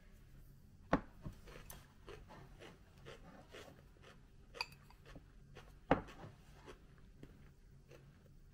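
A bowl is knocked down onto a wooden tray about a second in, then chopsticks click and scrape against the bowl while picking up food, with a ringing tap a little past the middle and another sharp knock about six seconds in.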